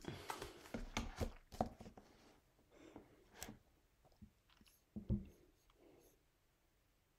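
Handling noise of a person moving close to the microphone as she settles in a chair: a run of soft knocks, clicks and rustles in the first two seconds, then a few scattered knocks, the loudest about five seconds in.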